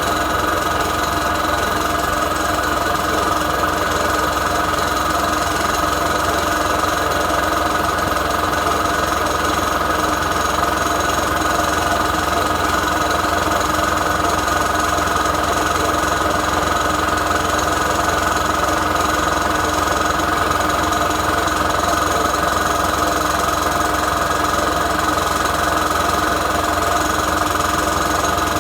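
APT electric piston air compressor running steadily, its motor driving the piston to pump air into the tank while it charges.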